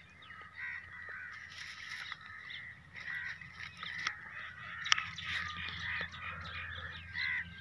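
Birds calling all around in a busy chorus of short repeated calls, with a few sharp clicks, the loudest about five seconds in.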